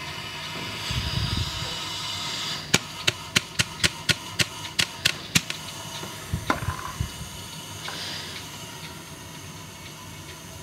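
Air hissing faintly into a Harvest Right freeze dryer's vacuum chamber through its slightly opened release valve, slowed by a partly crimped hose. About three seconds in come about nine sharp clicks, roughly three a second, then a few softer knocks.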